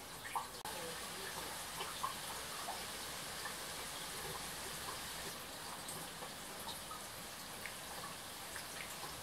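Thunderstorm rain falling steadily, with scattered single drops landing close by.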